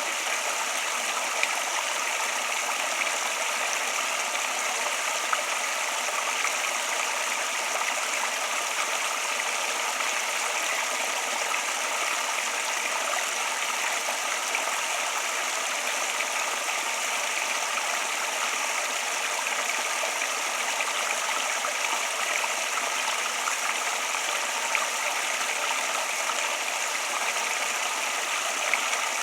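Water flowing steadily, an even rush that does not let up.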